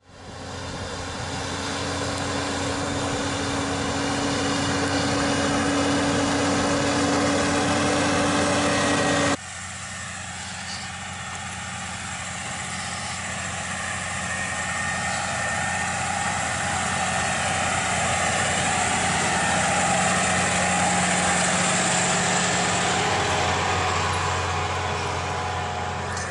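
Massey Ferguson tractor's diesel engine running steadily under load while pulling a Lemken tillage implement. It fades in at the start and cuts abruptly to another shot about nine seconds in, where it grows louder toward the middle and eases off near the end.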